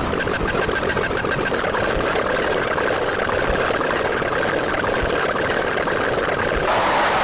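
A motor running steadily with a fast, even chatter. Near the end it gives way to a brighter, hissy sound.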